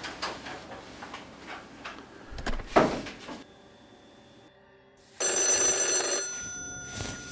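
A telephone bell rings once, a ring lasting about a second and a half that starts about five seconds in, its tones fading away afterwards. Earlier, about three seconds in, there is a single loud thud.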